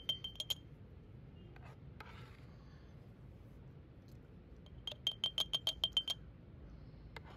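Metal spoon clinking against the rim of a glass jar as apple jam is spooned in: a few quick ringing taps at the start, then a fast run of about ten taps a little past halfway.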